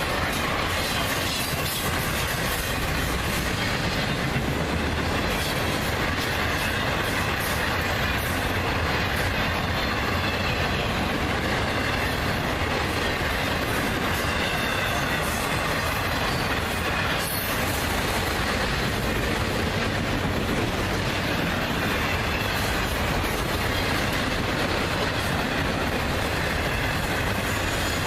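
Autorack freight cars rolling past at about 49 mph: a steady, unbroken noise of steel wheels on rail, with a faint high-pitched wheel squeal over it.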